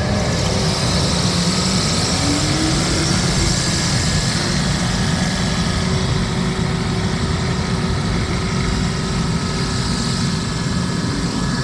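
Engine of a bucket loader running steadily, a continuous mechanical rumble.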